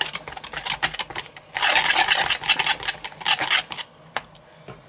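Wire whisk beating buttercream in a plastic bowl, mixing in green food colouring: fast rattling strokes of the wires against the bowl, lighter for a moment, then a second quick run of about two seconds, ending in a couple of single taps.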